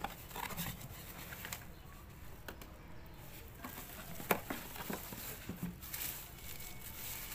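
Cardboard box flaps being pulled open and bubble-wrap packing rustling and crinkling as a wrapped speedometer assembly is lifted out, with scattered light clicks and one sharp tap about four seconds in.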